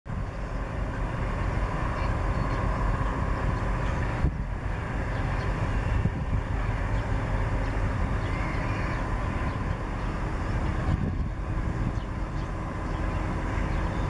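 Steady low background rumble with no clear bird call standing out.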